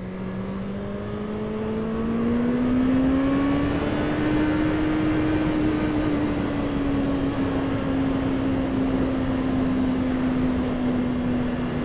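Honda CB650F inline-four engine pulling under acceleration. Its note rises for the first few seconds, then eases off slightly and holds steady, over wind and road noise.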